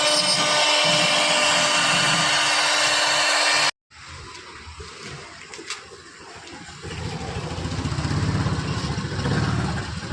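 A router is cutting a Corian sheet, giving a loud, steady hiss with a held whine. It cuts off abruptly a little under four seconds in. A quieter passage follows, in which a low rumble builds from about seven seconds.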